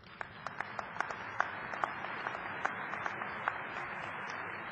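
Large audience applauding, with a few sharp individual claps standing out over the steady clapping in the first few seconds.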